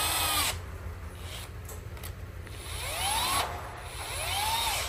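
Cordless drill-driver turning the screw terminals on a circuit breaker in a distribution board, in three short runs. Each run is a motor whine that climbs in pitch and then falls away as the trigger is squeezed and released.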